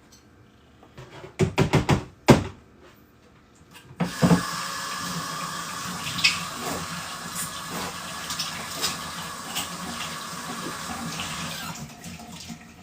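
A few quick knocks, then a tap running water into a sink as a steady rush for about eight seconds before it is turned off.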